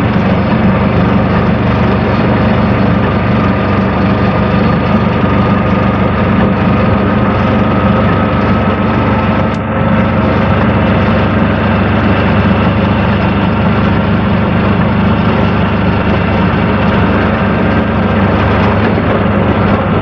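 Aixam Mega Multitruck's small two-cylinder Kubota diesel engine droning steadily, heard from inside the cab while the van drives along, with a brief dip in level about halfway through.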